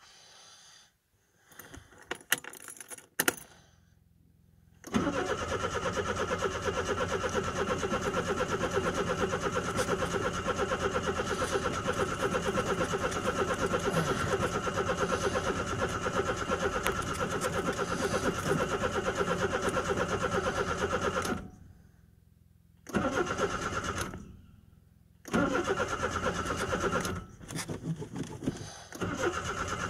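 A vehicle engine being cranked on its starter during a cold start, turning over without settling into a run. After a few clicks it cranks steadily for about sixteen seconds and stops, cranks briefly, then cranks again near the end.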